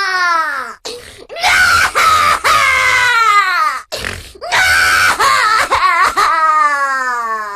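Cartoon baby crying sound effect: a string of loud wails, each sliding down in pitch with short breaks between them. The last wail trails off slowly.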